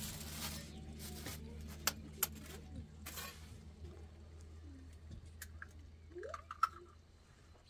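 Eggs being tapped and cracked at a pan of simmering tomato sauce: a few sharp clicks, two about two seconds in and one near the end, over a steady low hum.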